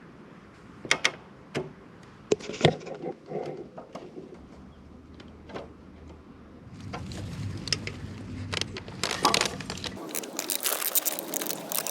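Hand tools and parts being handled: scattered sharp clicks and knocks, then from about seven seconds in a busier, louder clatter of small knocks and clicks.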